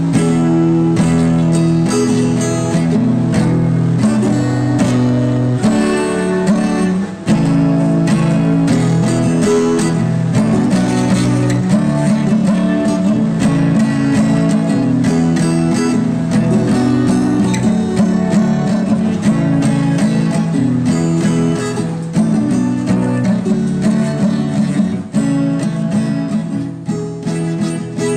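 Instrumental music led by strummed acoustic guitar, with sustained chords and a steady rhythm, fading a little near the end.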